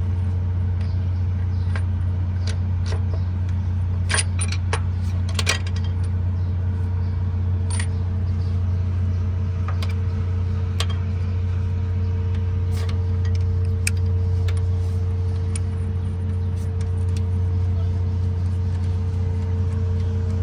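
Steady low machine hum, with scattered light metallic clinks as the steel rocker arms of an open diesel engine and the tools around them are handled, several clustered a few seconds in.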